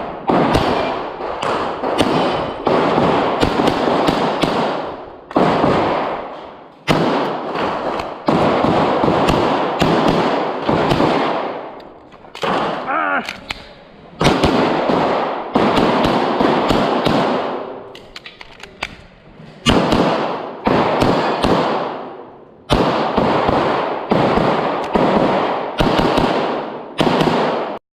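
Handgun fired in rapid strings of shots, each string followed by a long echo that dies away before the next begins.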